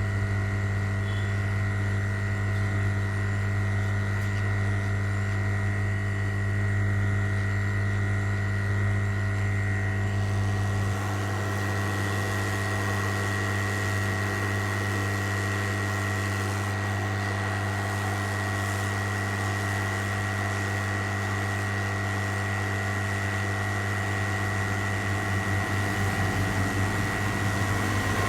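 A steady electrical hum with a high, thin whine above it, unbroken throughout; its low part shifts slightly about eleven seconds in.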